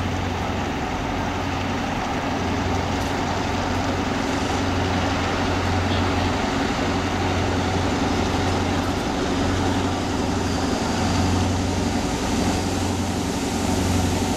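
EMD GP38-2 diesel-electric locomotive, its 16-cylinder two-stroke engine running as it draws closer at the head of a freight train: a steady low drone that grows slowly louder.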